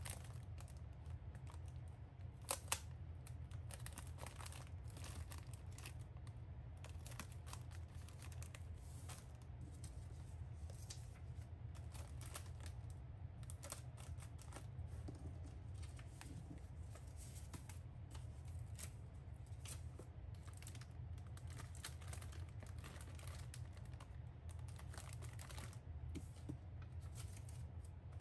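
Cellophane bags of rusks crinkling as hands handle them, with small ticks and soft tearing sounds from round paper stickers being peeled off and pressed onto the bags; two sharper clicks about two and a half seconds in. A steady low hum runs underneath.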